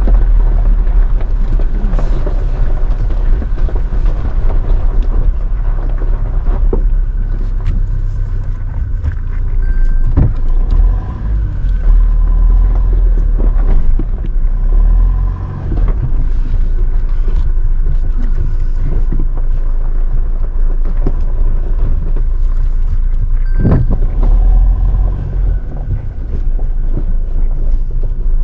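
Toyota Hilux driving slowly over a rough gravel mountain track: a steady low rumble from the vehicle and road, with scattered knocks and clicks from stones and suspension, the sharpest about ten seconds in and again near the end.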